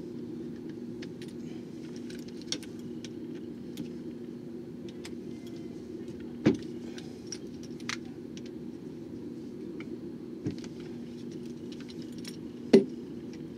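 Small metal clicks and ticks as an Allen key works the set screws out of the gear plate of a Barient 28 winch, with a sharper click about six and a half seconds in and the loudest one near the end, over a steady low hum.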